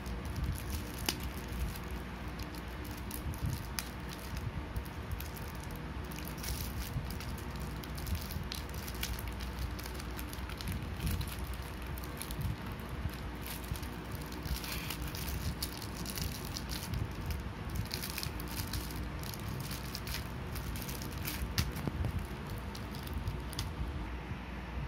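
Thin plastic wrapping crinkling and crackling in irregular bursts as hands unwrap a bundle of metal perfume travel atomizers, over a steady low hum.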